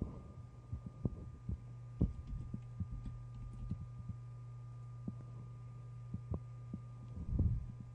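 Computer keyboard keys and mouse buttons clicking irregularly over a steady electrical hum from the microphone, with a faint thin whine above it. A longer jumble of low knocks comes about seven seconds in.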